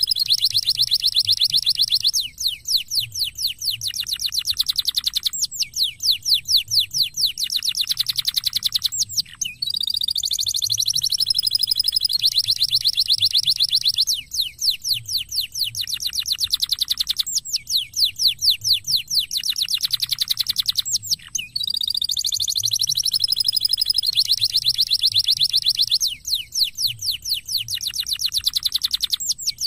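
Domestic canary singing a long, continuous song of fast rolling trills and high whistled notes, broken only by brief pauses; the same run of phrases comes round again about every twelve seconds.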